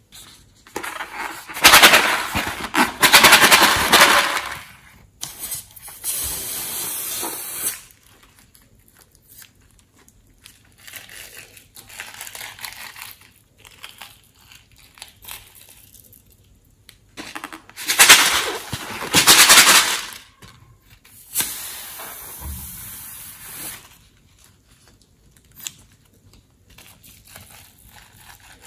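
Glitter and small sequins rattling rapidly in plastic shaker containers as they are shaken out, in four bursts, the loudest near the start and again past the middle, with quieter stretches between.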